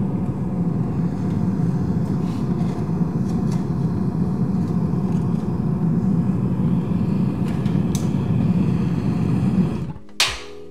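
Vortex-style gas forge running: a steady, loud, low rush of blown flame, with a few faint clicks over it. It cuts off suddenly about ten seconds in.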